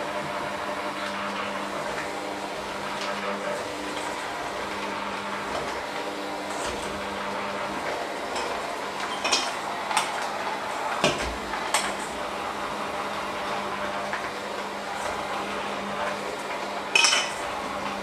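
Electric hand mixer running steadily, its beaters working a thick dough in a stainless steel bowl. The beaters clank against the metal bowl a few times about halfway through, and once more, louder, near the end.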